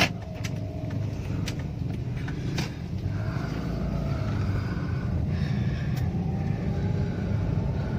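Steady low engine and road rumble heard from inside a moving car's cabin. A sharp click comes right at the start, with a few fainter clicks later.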